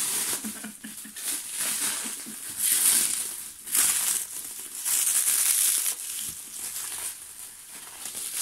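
Clear plastic film wrapping crinkling in irregular bursts as it is pulled and unwound from a wrapped drum.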